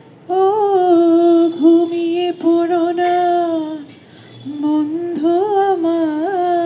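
A woman singing a slow melody unaccompanied, in two long phrases of held, wavering notes with a short break about four seconds in.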